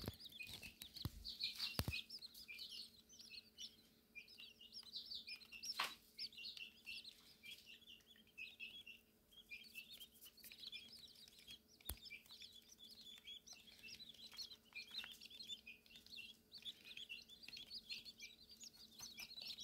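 Button quail chicks peeping: a faint, steady stream of short, high chirps, with a few sharp knocks.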